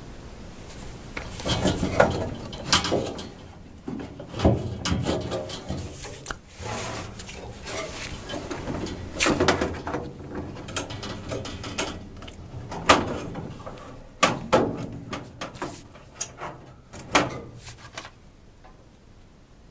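Irregular knocks, clicks and scrapes of a furnace filter being handled and pushed into its slot in the furnace housing, easing off near the end.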